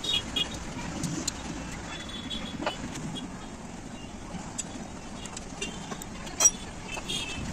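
A few scattered light clicks and taps of hand tools fitting the pickup coil nuts on a scooter engine's crankcase, over a steady low background hum.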